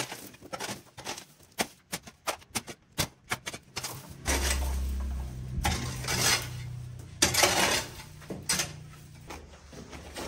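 Irregular clattering knocks of hard objects, then a steady low rumble from about four seconds in, with a few louder scraping strokes over it.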